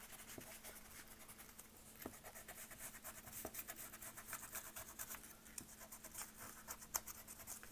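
Faint, quick rubbing strokes of a pencil eraser on drawing paper, erasing graphite pencil lines from under colored pencil.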